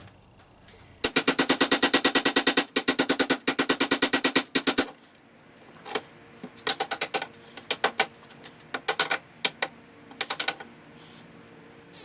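Metal being struck by a tool in fast, even strikes, about nine a second for nearly four seconds, then several shorter runs of strikes.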